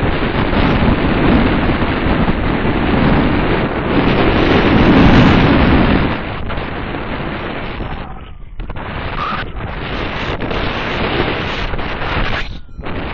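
Loud wind noise from the airflow over a camera's microphone during a paraglider flight in turbulent air. It dips briefly about eight and a half seconds in and again near the end.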